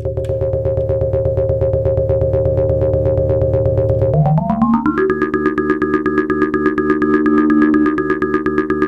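Eurorack modular synthesizer: a Make Noise QPAS resonant filter bank pinged by a fast, even clock and fed through a Mimeophone set for Karplus-Strong ringing, giving a pulsing chord of ringing tones. About four seconds in, the pitches glide up together and hold, then slide back down at the end.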